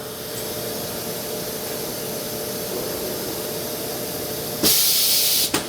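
Bridgeport-Hardinge GX480 vertical machining center going through a tool change on its 20-station side-mount tool changer: a steady machine hum and hiss, then about four and a half seconds in a loud burst of air hiss lasting about a second.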